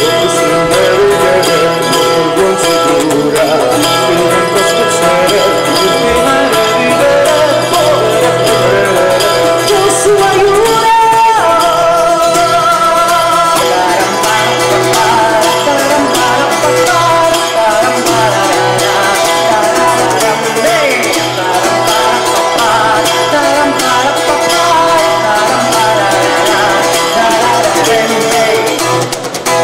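A man singing while playing a bowl-back mandolin, a continuous folk-style song with plucked and strummed string accompaniment.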